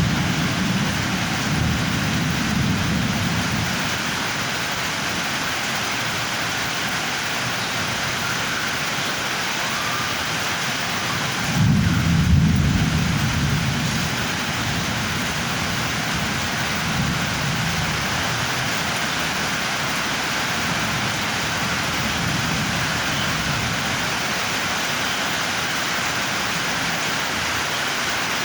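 Thunderstorm: steady heavy rain falling, with low rolls of thunder, the loudest about twelve seconds in.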